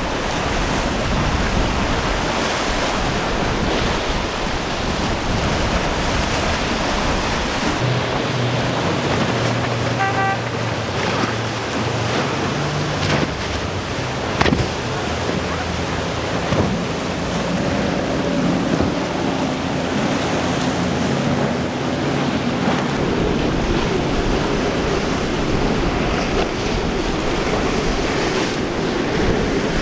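Rough sea surf crashing and hissing as boats power through breaking inlet waves, with outboard engines running underneath, their pitch shifting from one boat to the next. A brief tone sounds about ten seconds in.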